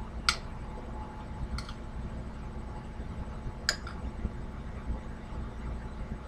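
Metal utensil clinking against a ceramic bowl while rice is stirred: a sharp clink just after the start, a fainter one, and another sharp clink a little past halfway. A low steady hum lies under it.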